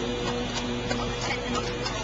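Instrumental accompaniment of a folk song holding a steady chord between sung lines, with a few faint light ticks.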